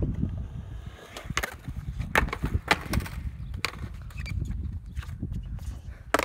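Skateboard on concrete: wheels rolling with a low rumble, broken by a series of sharp clacks of the deck and wheels hitting the ground, the loudest about two seconds in and another just before the end.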